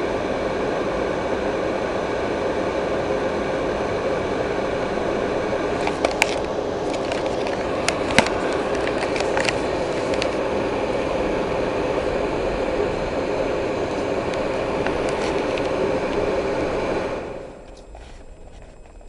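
A steady mechanical drone with several steady tones running together, broken by a few sharp clicks between about a third and a half of the way in. It cuts off suddenly near the end.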